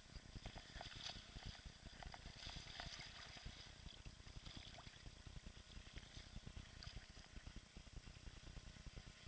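Faint water sounds, light splashing and trickling, strongest in the first few seconds, over a low steady rumble on the microphone.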